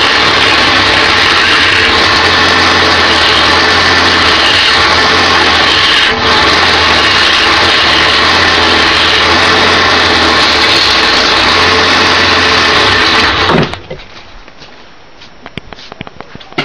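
Wood lathe running while a turning tool cuts a spinning cherry bowl blank: a loud, steady hiss of cutting over the lathe's low motor hum. It cuts off suddenly near the end, leaving a few faint clicks.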